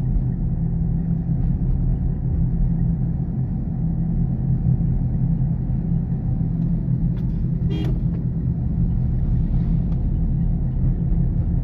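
Cabin sound of a Toyota Corolla XLi running on LPG in fifth gear with the air conditioning on: a steady low engine and road rumble. There is a brief sharp knock about eight seconds in.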